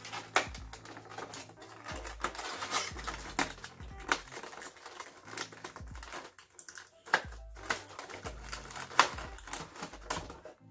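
A vinyl figure in its plastic bag and cardboard window box being handled: irregular crinkling and sharp clicks and taps as it is packed back in, over quiet background music.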